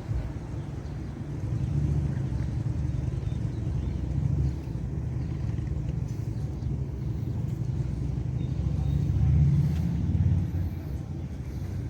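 A tour boat's engine running as the boat moves along the river: a steady low rumble that swells to its loudest about nine to ten seconds in, then eases off.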